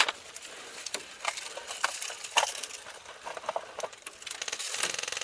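Scattered sharp clicks and light clinks, then near the end a fast, even rattle of distant airsoft full-auto fire.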